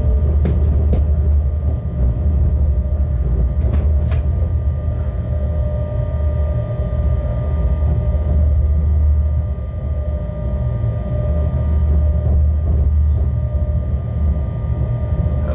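Locomotive cab interior while the loco rolls slowly on its own: a steady low rumble with a constant whine above it, and a few sharp clicks in the first few seconds.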